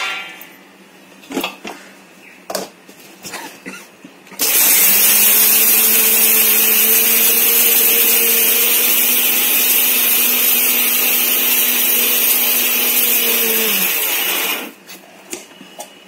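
A few clicks and knocks, then an electric mixer grinder runs for about ten seconds, a loud whirring with a steady hum, as it grinds dry whole spices into powder. Its pitch drops as it is switched off and runs down, a couple of seconds before the end.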